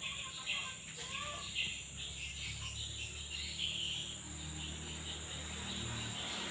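Crickets and other insects chirring steadily, a thin high tone with uneven rasping patches in the upper-middle range, over a faint low hum.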